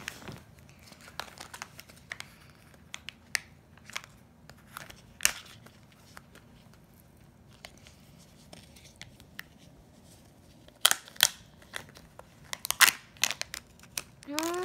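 Foil and plastic wrapping of a Kinder Joy egg crinkling and tearing in small, scattered crackles as it is peeled off by hand, with louder bursts of crinkling near the end.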